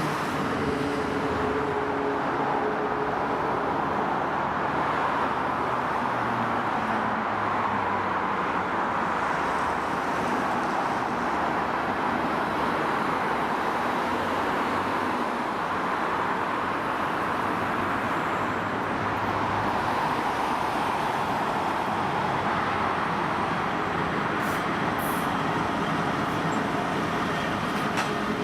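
Train running past on the rails, a steady rolling rumble of wheels on track. A low engine drone fades out in the first few seconds, and a few faint clicks come near the end.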